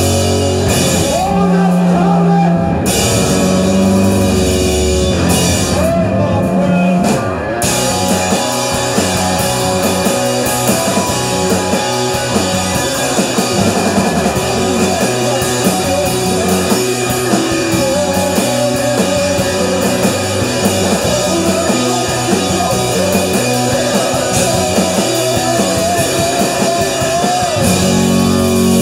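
Live rock band playing loud: distorted electric guitars, bass guitar and drum kit.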